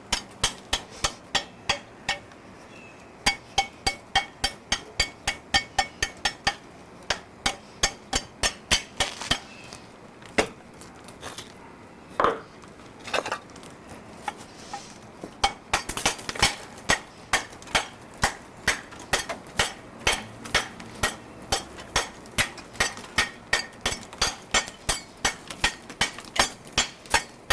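A metal tool striking and chipping at brick in quick, regular strokes, about two to three a second, with a short pause around the middle: old mortar being knocked off bricks to clean them for sealing a tomb.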